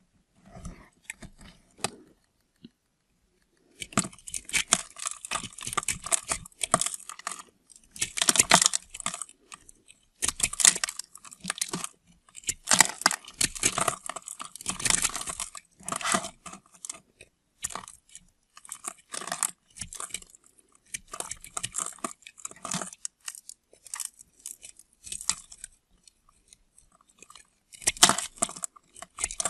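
A blade cutting through bars of soap, with crisp crunching and scraping strokes in short runs separated by brief pauses.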